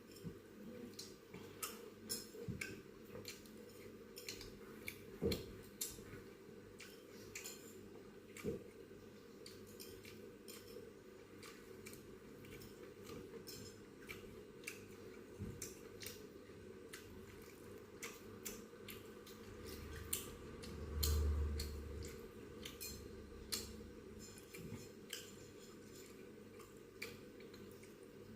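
Close-miked chewing of a last mouthful of chicken curry: many small wet mouth clicks and smacks, with a brief low rumble about two-thirds of the way through.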